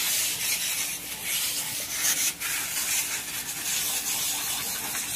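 High-pressure washer jet spraying water onto a truck's wheel and chassis, a steady hiss with a faint steady hum underneath.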